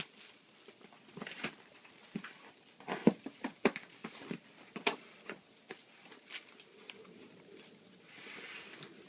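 Irregular light knocks, taps and rustles of packing materials being handled, thickest a few seconds in, with a short soft brushing or rustling hiss near the end.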